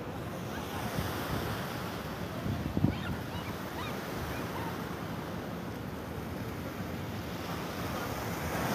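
Ocean surf washing on the beach, heard as a steady rush with wind buffeting the microphone. There is a brief low thump about three seconds in.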